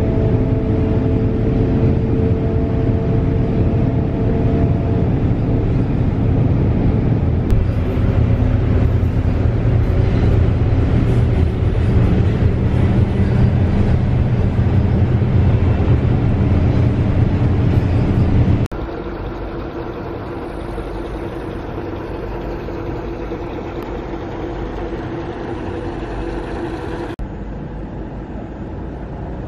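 Steady low rumble of engine and road noise inside a moving city bus. About two-thirds of the way through it drops suddenly to a quieter, steady background noise.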